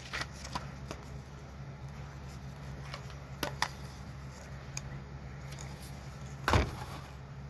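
Small items being handled by hand: light taps and rustles, with one louder knock about six and a half seconds in, over a steady low hum.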